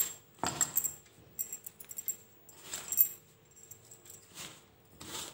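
Bangles on a wrist jingling and clicking irregularly as a hand rubs and squeezes crumbly semolina dough in a steel bowl, with soft grainy scrapes in between and one sharper click about three seconds in.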